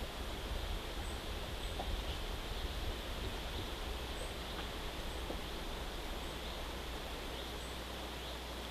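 Outdoor nature ambience: a steady low rumble and an even hiss, with small high-pitched chirps every second or so.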